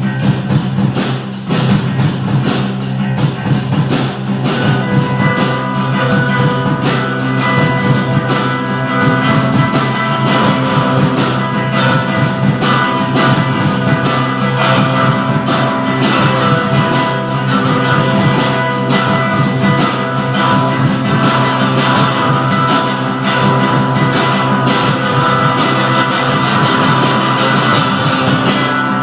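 Rock music: guitar and drums playing a steady, fast beat, with sustained held notes coming in about five seconds in.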